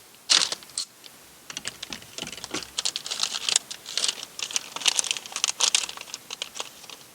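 Small plastic parts and packaging being handled by hand: a sharp click about a third of a second in, then a quick, irregular run of clicks and crinkling rustles.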